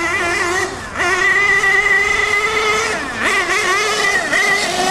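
HPI Savage RC monster truck's small engine running at high revs as it drives. The pitch holds fairly steady, eases briefly just before a second in, then drops sharply about three seconds in as the throttle is let off and climbs straight back up.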